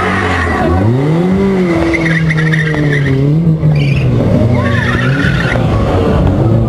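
A car engine revving hard, its pitch climbing sharply about a second in and then held high. Tyres squeal in wavering stretches around two seconds in and again near the end.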